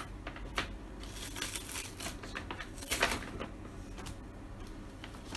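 Paper bag rustling and crinkling as hands work open the folded top of a kraft-paper delivery bag, with sharper crackles about one and a half and three seconds in.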